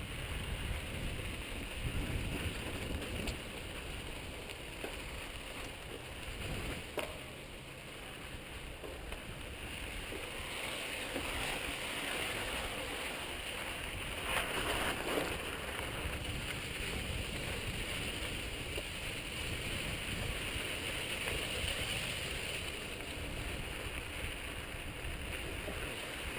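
Mountain bike riding over a dry, rocky dirt trail: tyres crunching and the bike rattling, with wind rushing over a helmet-mounted camera's microphone and a few sharper knocks.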